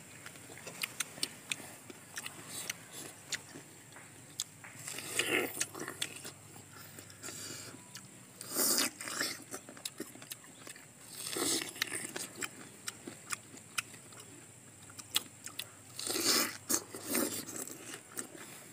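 People biting and chewing crisp, juicy star fruit slices: many small wet clicks and smacks, with several louder crunching bites.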